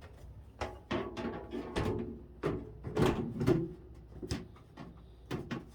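A string of irregular knocks, clunks and rattles from a microwave oven being handled, its casing and parts bumping as they are moved.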